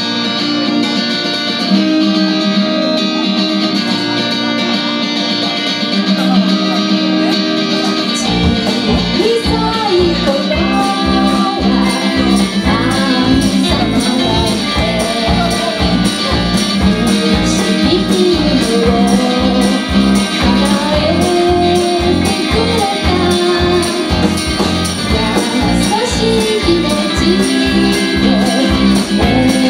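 Live band playing a pop song: an instrumental intro on guitars, then bass and drums come in about eight seconds in, and a woman sings the lead melody over the band.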